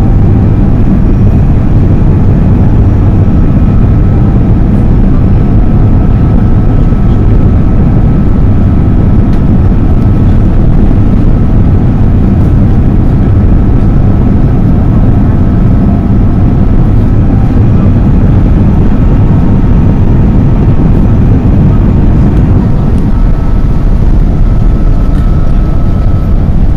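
Cabin noise of an Airbus A330-200 landing, heard from a seat beside the wing engine: a loud, steady low roar of jet engine and rushing air, with a faint thin whine above it.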